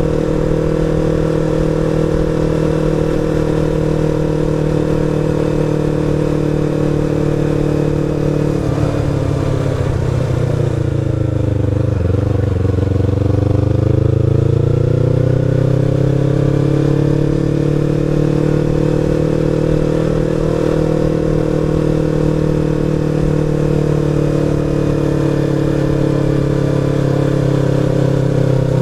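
Sport motorcycle engine running at steady cruising revs while riding. About nine seconds in the revs fall away, then climb back over the next few seconds and hold steady again.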